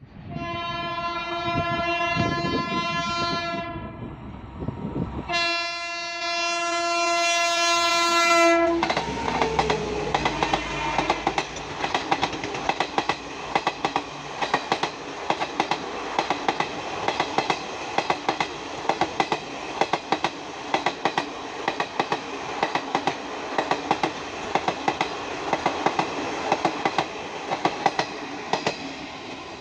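An Indian Railways express train sounds its horn in two long blasts, then passes at speed, its wheels clattering over the rail joints in a steady 'tadak tadak' rhythm.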